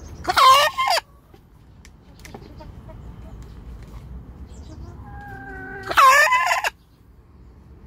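A hen makes two loud calls about five and a half seconds apart, each under a second long, with a pitch that rises and falls. This is the sound her owner calls coughing, which the 14-month-old hen has had for some time.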